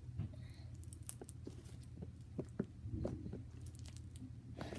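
Hands squeezing and kneading a lump of pink butter slime made with Model Magic clay, giving soft squishy sounds with small irregular sticky clicks and pops.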